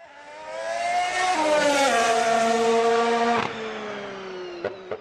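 Race car engine at high revs, accelerating with two quick gear changes. It lifts off sharply about three and a half seconds in, then its pitch slowly falls, with a few sharp pops near the end.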